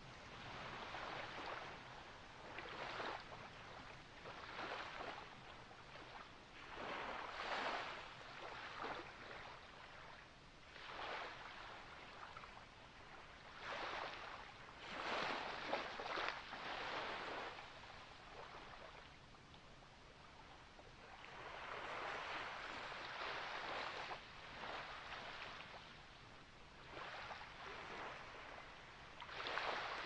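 Sea water washing and splashing in irregular swells, one every second or two, with no steady note under it.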